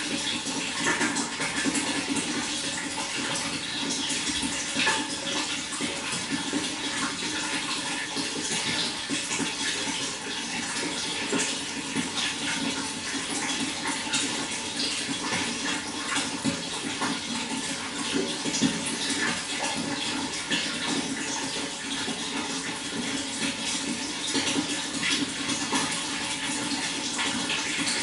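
Running water flowing steadily, with many small splashes and trickles.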